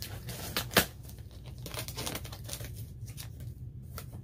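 A cardboard gift box being opened by hand: paper and tape tearing with a sharp rip just under a second in, then softer crinkling of paper.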